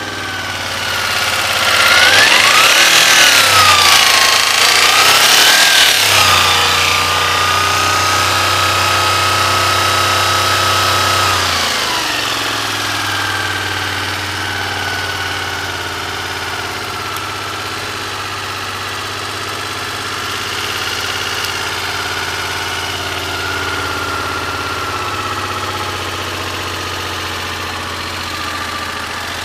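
Honda VFR400 NC21's V4 engine blipped twice and held at raised revs for several seconds, then dropping back to a steady idle about twelve seconds in. The owner calls it a weird engine knocking.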